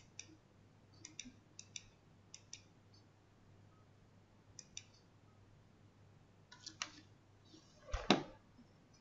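Computer mouse button clicks, mostly in quick pairs, spread over several seconds, then a louder knock near the end.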